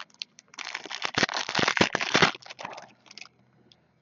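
Trading-card pack wrapper crinkling and crackling as it is torn open, a dense run of crackles lasting nearly two seconds, then a few light clicks as the cards are handled.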